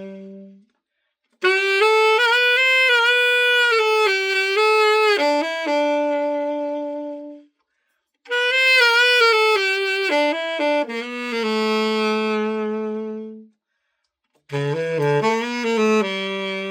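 Martin tenor saxophone played solo in three short melodic phrases, each ending on a long held note, with brief silent gaps between them: a play test of the freshly overhauled horn.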